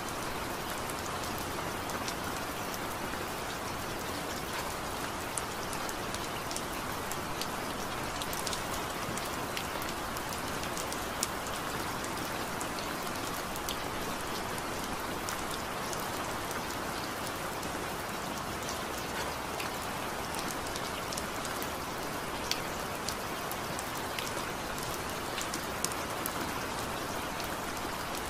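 Steady rain falling: an even rushing wash of rain with the odd sharper drop tick scattered through it.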